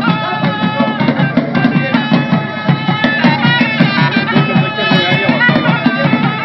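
Loud traditional music: a reedy, bagpipe-like wind instrument holding and shifting high notes over a quick, steady drumbeat.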